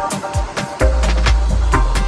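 Electronic background music with a steady beat and heavy bass; the bass drops out briefly at the start and comes back in a little under a second in.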